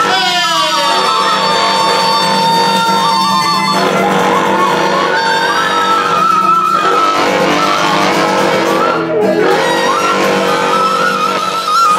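Wooden flutes play a wavering melody over a steady low drone from a long PVC pipe blown like a didgeridoo, with a guitar strummed underneath.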